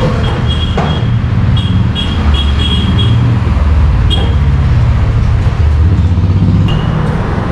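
Steady low rumble of road traffic, with short high-pitched beeps that come several times in the first three seconds, once at about four seconds, and again near the end.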